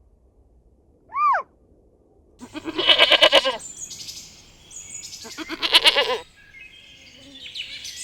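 A goat bleating twice, two long wavering bleats a couple of seconds apart. A single short rising-and-falling chirp comes before them, and high bird chirping and twittering runs behind them from about halfway on.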